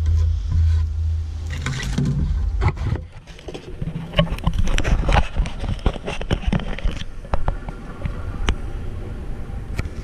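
Low rumble of wind on the microphone for the first few seconds, then a run of irregular light clicks and taps.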